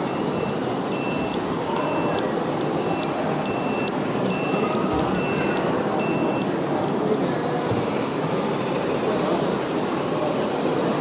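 Reversing beeper on an RC model truck or construction machine: about ten short, evenly spaced beeps at one high pitch, stopping a little over six seconds in, over steady background crowd chatter.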